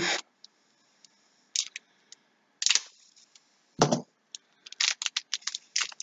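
Foil trading-card pack being slit open with a utility knife and then crinkled and pulled apart by hand: short scattered scrapes and crinkles, with one louder knock near the middle.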